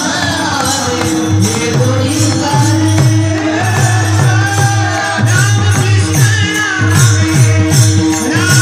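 Devotional kirtan singing: a voice sings a gliding melody over a steady drone, with a quick, even drum beat and jingling percussion.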